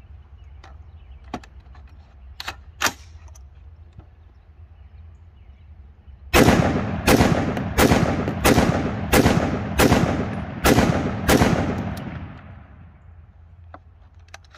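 Ruger SFAR semi-automatic .308 (7.62x51) rifle fired eight times in steady succession, a little under a second apart, each shot trailing off in an echo. The rifle is cycling each round on its gas setting three. A few light handling clicks come before the first shot.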